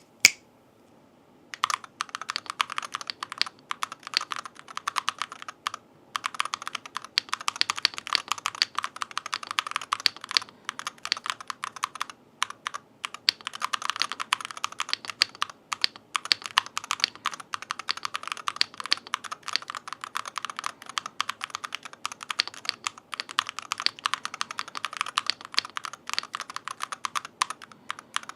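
Fast typing on an M1 V5 TMR gaming keyboard: a dense run of rapid key clacks, with a couple of short pauses.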